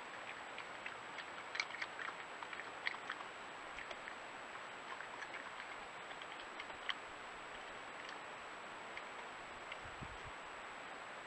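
Faint crackly clicks and crunches of a European badger eating peanuts off paving stones, over a steady hiss. The clicks are busiest in the first seven seconds and grow sparse after.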